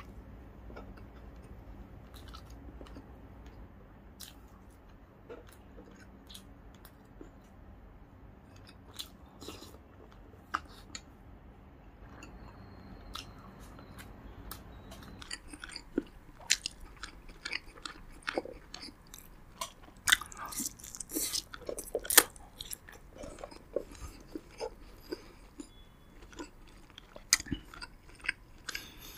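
Close-miked chewing and biting of roasted pigeon meat: wet mouth clicks and smacks, sparse and faint at first, then denser and louder from about halfway.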